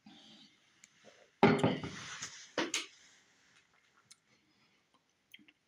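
A glass beer mug being handled on a wooden table: a loud knock about a second and a half in that dies away over most of a second, a second shorter knock about a second later, then a few small clicks.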